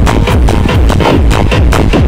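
Electronic dance music with a fast, driving beat and very heavy bass, played very loud through a high-power sound system.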